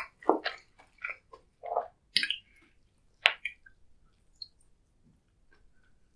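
Close-miked eating: wet, sticky chewing and squishing in quick bursts for about three seconds, with one sharp click a little after three seconds, then only faint mouth clicks.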